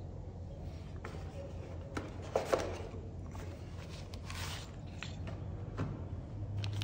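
Small plastic accessories being handled and set down on a desk: a few light knocks and taps, the loudest about two and a half seconds in, and a brief rustle of packaging around four seconds in.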